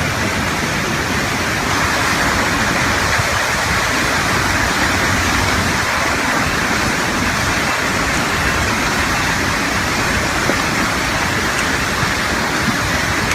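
Flash-flood water rushing steadily and loudly.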